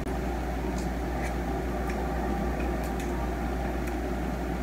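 Steady low hum of room noise, with a few faint clicks.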